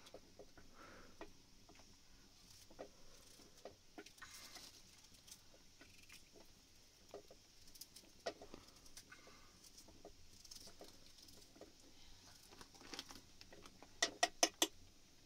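Scattered light taps and clicks, then four sharp clicks in quick succession near the end.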